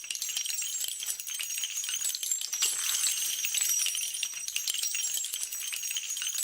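Continuous dense jingling and clinking of small metal pieces, many light high-pitched rings overlapping at a steady level.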